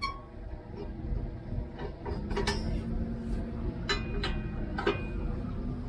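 Metal clanks and clinks of the baler's wagon hitch and hitch pin being worked as the kicker wagon is unhooked: five or so sharp knocks that ring briefly, over a steady low hum.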